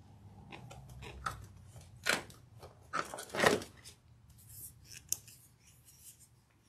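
Craft supplies being handled: rustling and a few sharp clicks and snaps, the loudest about two seconds and three and a half seconds in, over a low steady hum.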